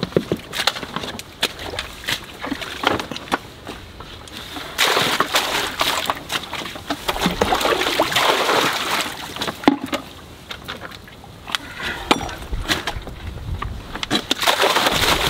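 Buckets of soil tipped into a bathtub of water, splashing and sloshing. There are two long pours, the first about five seconds in and the second near the end, with knocks of plastic buckets being handled in between.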